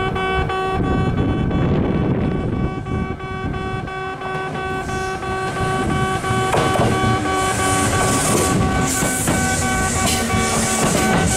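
Kintetsu 2444-series electric train rolling into the station, its wheels and running gear rumbling as it slows, with pulses of brake hiss from about halfway. A repeating electronic warning bell rings steadily.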